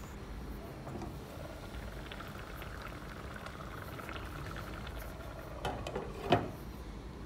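Water boiling in a covered pot, a steady bubbling. About six seconds in, the glass lid is set back down on the pot with a sharp clank.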